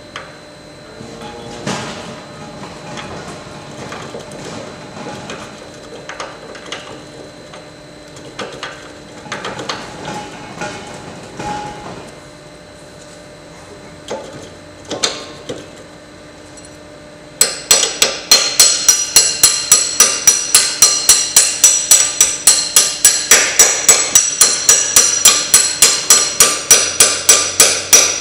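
Light clinks and scrapes of steel parts being handled, then, about two-thirds of the way in, a rapid, loud, steady run of hammer blows on steel, about four or five a second, driving the auger's stub shaft into place.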